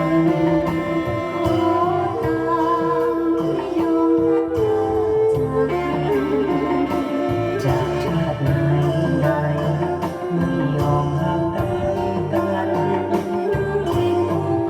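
Thai so fiddle with a metal body and a cat-skin soundboard, bowed on a gliding, voice-like melody over a backing track with a bass line and a steady beat.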